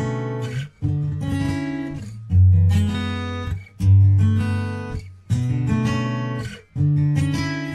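Background music: an acoustic guitar strumming chords about every second and a half, each ringing out and fading before the next.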